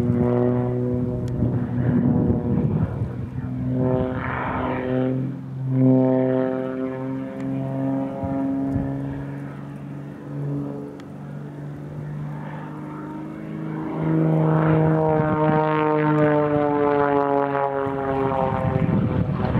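Extra 330SC aerobatic monoplane's six-cylinder Lycoming engine and propeller droning through a display routine, the pitch shifting as power and airspeed change. Late on, the note drops steadily as the aircraft passes by, with wind on the microphone near the start and end.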